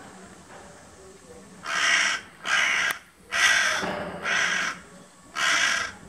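Crow cawing: five harsh caws, each about half a second long and roughly a second apart, starting a little under two seconds in.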